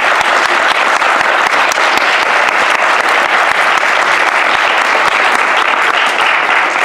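Audience applauding: steady, dense clapping that eases off slightly near the end.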